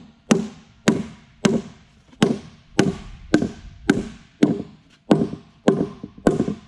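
Rubber mallet striking the sides of a white HDPE mold in a steady rhythm of about eleven knocks, one every half second or so, each with a short ring, to tap a cast epoxy-and-wood blank loose.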